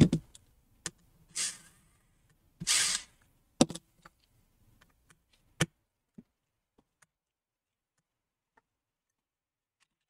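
Handling noises from gloved hands working inside an opened laptop: a knock at the start, a few light clicks, and two short scraping rustles within the first three seconds. After about six seconds it goes nearly quiet.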